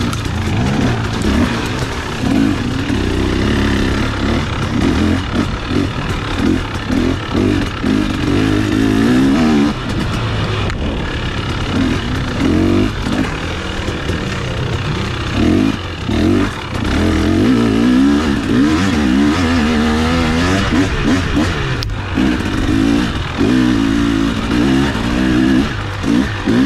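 KTM two-stroke dirt bike engine being ridden hard, its pitch rising and falling again and again with the throttle, with brief drops off the throttle about 11, 16 and 22 seconds in.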